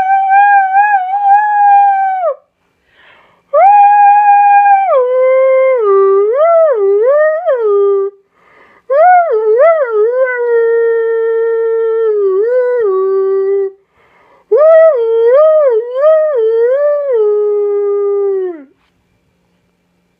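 Puppy howling: four long, drawn-out howls, each starting high and held, then dropping into wavering up-and-down yodels before trailing off, with short breaks between them.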